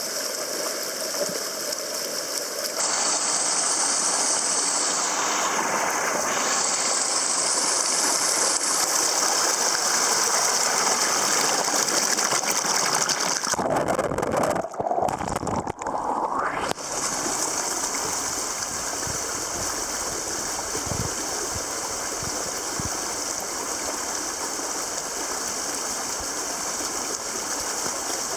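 Water of a small mountain creek rushing and splashing over rocks in small waterfalls, a steady dense rush. The sound changes abruptly about three seconds in, again around halfway, and once more a few seconds later, as it jumps between different cascades.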